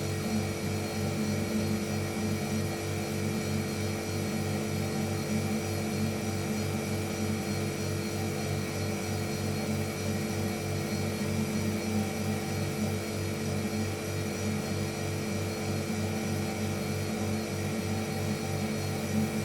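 Household refrigerator running, a steady electric hum with several fixed low tones and a faint flutter.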